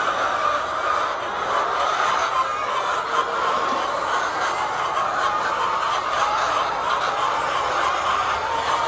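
A flock of laying hens clucking and chattering together, a steady dense mass of overlapping calls.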